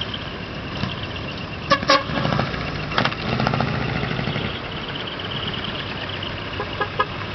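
Horns of decorated trucks tooting in short blasts: two quick toots about two seconds in, another a second later, and two brief ones near the end, over the low running of truck engines rolling past slowly.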